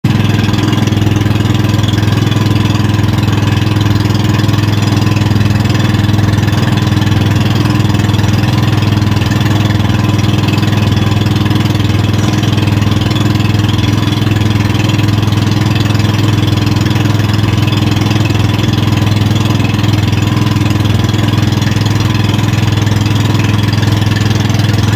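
Engine of a motorized outrigger boat (bangka) running steadily under way: a loud, even low drone that holds the same pitch throughout.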